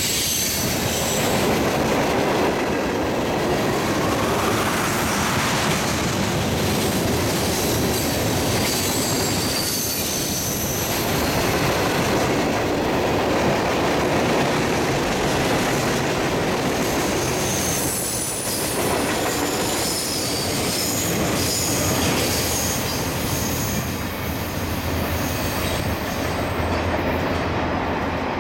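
Mixed freight train's cars rolling past on steel rails, a steady rumble and clatter with intermittent high-pitched squealing from the wheels.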